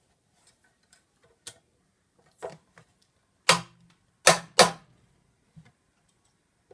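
Hammer striking a flat-blade screwdriver to knock the top end housing off a Numatic vacuum cleaner motor unit: a few light taps, then three hard blows close together in the second half.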